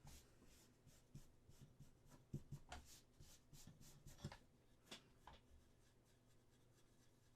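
Faint, scattered scratching, rubbing and small clicks of hand work on a resin model part, with a few sharper scrapes in the middle that thin out near the end.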